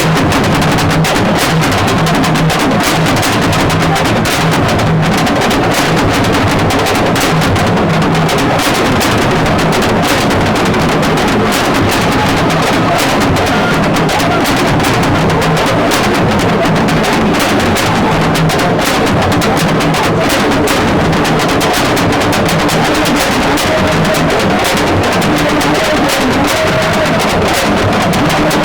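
Music with loud, fast drumming that runs on without a break.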